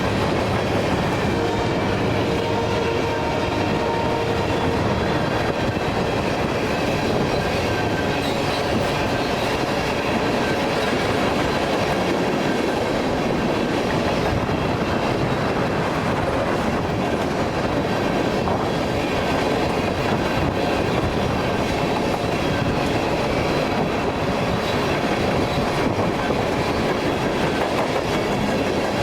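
Freight train of tank cars rolling past, a steady noise of wheels on rails. The tail of the train horn fades out in the first few seconds.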